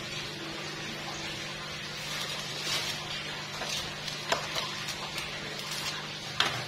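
A steady low hum with a light hiss, and a few small sharp clicks and rustles in the second half, the sharpest near the end.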